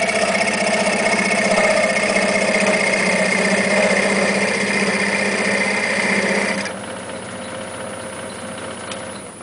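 A parting tool cutting into a spinning wooden goblet stem mounted off-center on a wood lathe, a loud steady cutting noise over the lathe's running. About two-thirds of the way through the tool is lifted off and the cutting noise stops abruptly, leaving only the quieter sound of the lathe still spinning.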